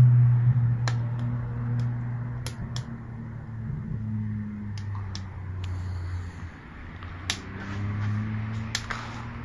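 Wood-fired rocket stove burning hard: a low droning hum that wavers in pitch and strength, with scattered sharp crackles.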